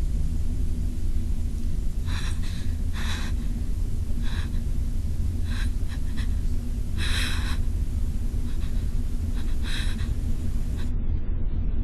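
A person's frightened, breathy gasps, about six short breaths, the longest about seven seconds in, over a steady low rumble.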